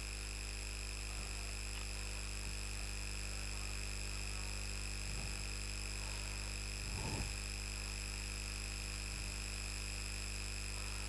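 Steady electrical mains hum with hiss and a few constant high-pitched whines, the background noise of the recording chain. A couple of faint, brief sounds rise above it around five and seven seconds in.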